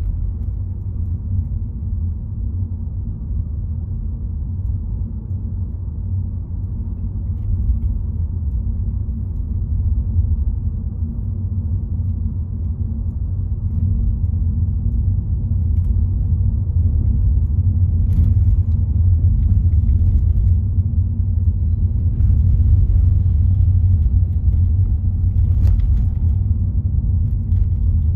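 A car driving along a road: steady low road and engine rumble, growing a little louder in the second half, with a couple of faint clicks.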